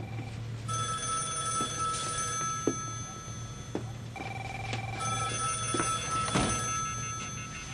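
A telephone rings in repeated bursts of steady electronic tones, alternating between a lower and a higher tone. A few sharp knocks sound in between, the loudest near the end.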